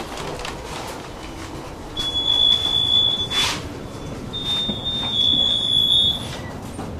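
Tram running along the rails with a steady rumble. A high-pitched steady squeal starts about two seconds in and lasts a second and a half, then comes again for about two seconds, with a short hiss between the two.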